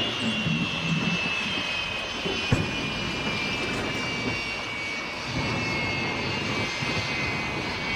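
A steady high-pitched mechanical whine that slowly falls in pitch, over a continuous rumbling noise, with a single brief knock about two and a half seconds in.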